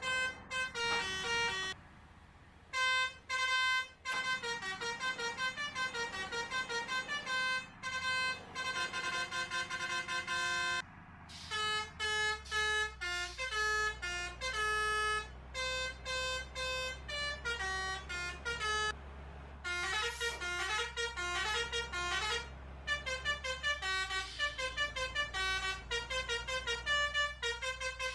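Basuri telolet multi-tone horn playing rapid runs of short, pitched toots in quick melodic sequences, broken by brief pauses. From about twelve seconds in, a steady low hum runs underneath.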